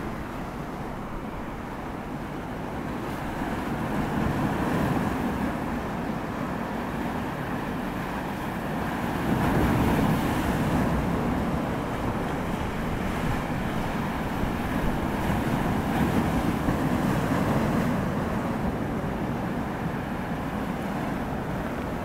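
Sea waves breaking and washing over shoreline rocks: a steady rushing surf that swells louder every few seconds as each wave breaks, strongest about ten seconds in.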